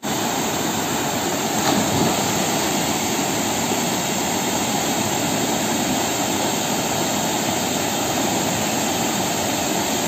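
Small waterfall cascading over rock into a plunge pool: a steady rushing of falling water.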